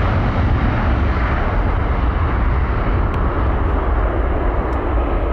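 Boeing 737-800's CFM56 turbofan jet engines at takeoff thrust during the takeoff roll: a steady, loud roar with a heavy low rumble, its hiss thinning slightly as the jet rolls away.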